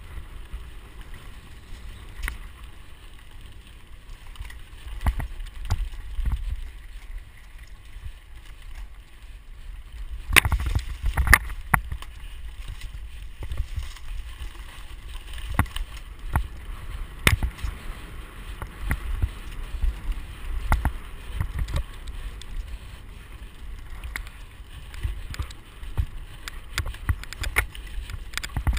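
Mountain bike ridden fast over a bumpy dirt forest trail, heard from a camera riding along on it: a steady low rumble of wind and ground noise, broken by many sharp knocks and rattles from the bike over bumps, densest about ten seconds in.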